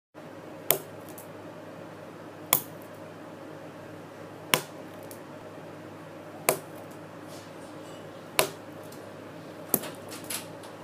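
Sticky hand toy flung down onto a wooden table, slapping sharply six times about two seconds apart, with a couple of lighter taps near the end.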